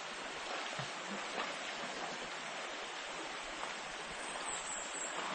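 Shallow river running over stones: a steady rush of water.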